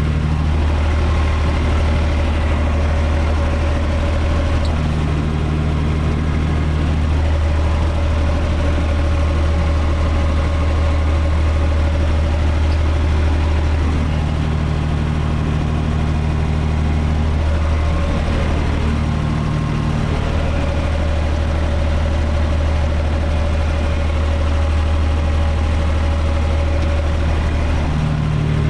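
UTB 445 4x4 tractor's diesel engine running steadily under load, heard from inside the cab, driving a rear-mounted rotary tiller through the soil. A slightly higher engine tone comes and goes every few seconds.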